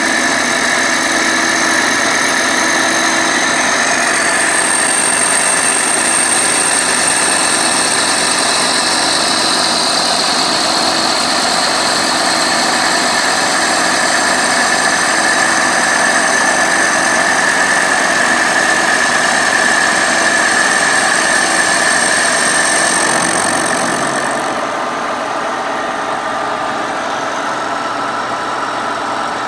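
Kearney & Trecker milling machine's face mill cutting cast iron on a roughing pass, a steady machining whine with the mill's drive running beneath it. About three-quarters of the way through the sound drops as the cutter runs off the end of the work, and the mill keeps running.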